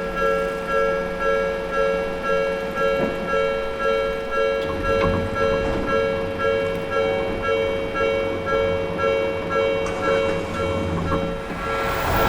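Japanese level-crossing warning bell ringing in a steady electronic clang, about one and a half strikes a second, alternating between two pitches. Near the end, the noise of an approaching Odakyu Odawara Line train rises.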